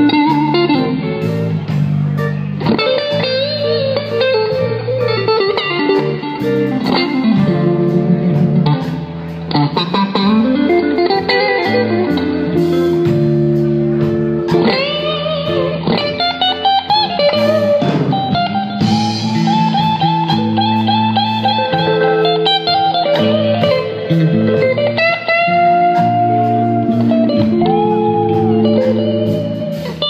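Live blues: a Telecaster-style electric guitar playing a lead solo with bent notes sliding up and down, including a long wavering held note about two-thirds of the way through, over a bass line.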